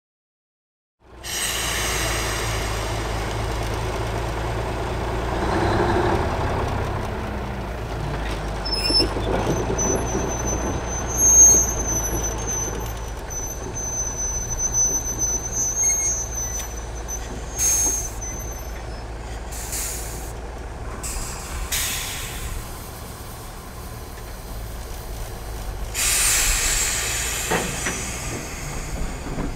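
Diesel locomotive running at idle with a steady low rumble, starting about a second in. Air brakes hiss in several short releases in the second half, with a longer hiss near the end, and a thin high whine runs for several seconds in the middle.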